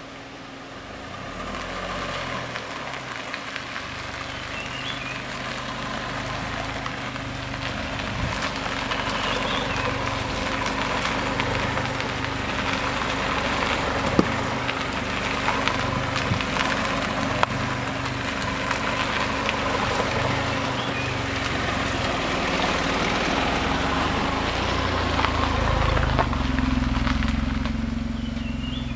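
Tata Nexon driving slowly over rough, landslide-strewn road, its engine running steadily under the noise of tyres on loose rock and gravel, with a few sharp knocks along the way. The engine gets louder in the last few seconds.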